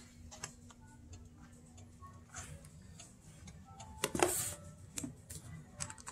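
Faint scattered clicks and handling noises from setting out flour on a plate on a kitchen counter, with one brief louder rustle about four seconds in.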